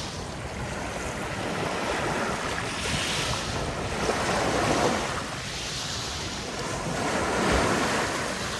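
Sea waves washing onto the beach, swelling and falling back about three times, with wind buffeting the microphone.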